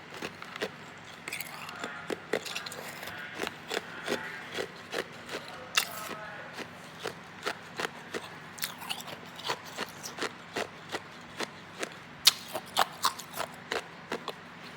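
Hard ice being bitten and chewed close to the microphone: a rapid run of sharp, brittle cracks and crunches, about two or three a second.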